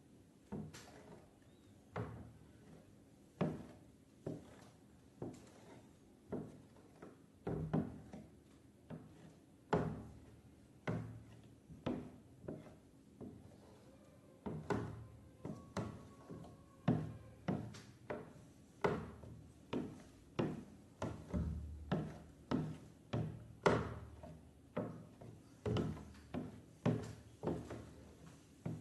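A long series of dull thunks, about one to two a second at an uneven pace, each short with a quick fade.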